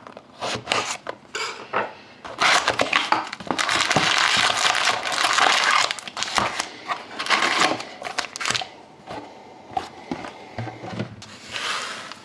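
Sealed box of hockey trading cards being opened by hand: dense rustling and tearing of wrapping and cardboard, loudest and most continuous for a few seconds in the middle, with scattered small handling clicks and rubs around it.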